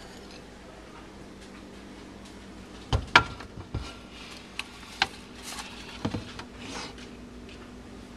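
A frying pan being handled into a refrigerator and set down on a shelf: a quiet stretch, then a series of sharp knocks and clatters, the loudest about three seconds in and more around five and six seconds, with light rustling between, over a faint steady hum.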